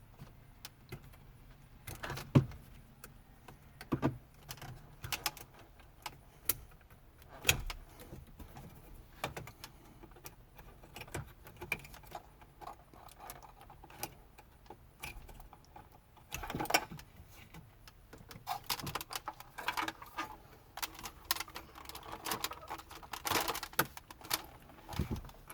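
Irregular clicks, taps and rattles of the plastic dash bezel and wiring connector clips being handled and unplugged behind a Ram 1500's dashboard, with denser rattling in two stretches in the second half.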